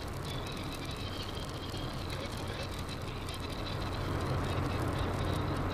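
Cabin sound of a Mahindra XUV500 driving on a rough gravel track: a steady low engine and road rumble, with small rattles and clicks from the stony surface. It grows a little louder about four seconds in.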